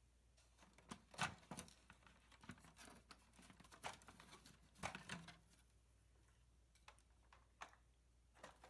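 Faint, scattered clicks and taps of plastic toy parts being handled as a 1970 Hot Wheels Tune-Up Tower is pulled apart.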